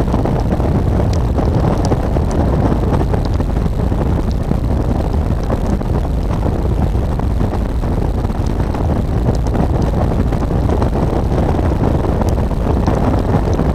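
BMW R1200 GS Adventure's boxer-twin engine running steadily on the move, heavily mixed with wind rush on the microphone.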